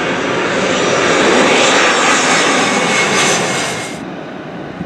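Airbus A321 jet airliner on final approach, coming in low: a loud engine rush with a high whine. It cuts off abruptly near the end, leaving a fainter, more distant jet sound.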